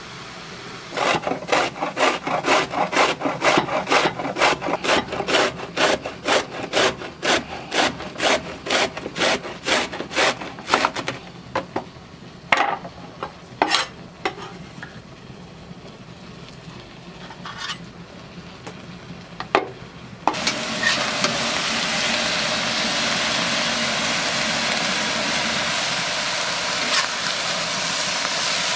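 Root vegetable rasped on a metal box grater in a quick steady run of strokes, about two or three a second, then a few single strokes. About twenty seconds in, minced meat and grated vegetables start sizzling steadily in a hot wok.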